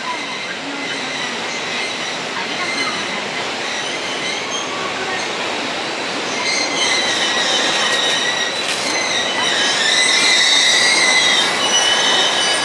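A JR East 253-1000 series electric limited-express train pulling into a station platform, its running noise growing steadily louder as it approaches. From about halfway in, a high-pitched metallic squeal of several wavering tones rises over the noise as the train slows.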